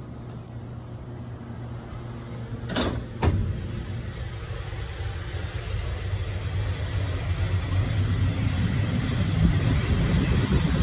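Matterhorn Gotthard Bahn electric train pulling away from a station: a low rumble that grows steadily louder as it gathers speed, with two sharp clunks close together about three seconds in.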